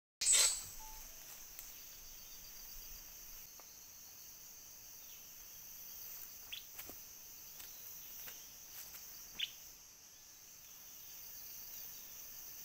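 Steady high-pitched chorus of insects in tropical forest, with a few short chirps about six and nine seconds in. A sharp burst as the sound cuts in at the very start.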